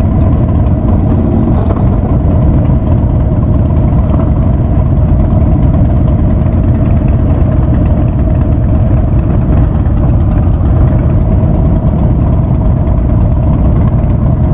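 Harley-Davidson Ultra Classic's V-twin running steadily through a Vance & Hines Big Radius aftermarket exhaust: a loud, deep rumble that holds even, with no change in revs.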